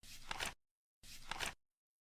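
Flip clock sound effect: the number cards flip once a second, each flip a brief rustle that ends in a few sharp clacks, twice in a steady rhythm.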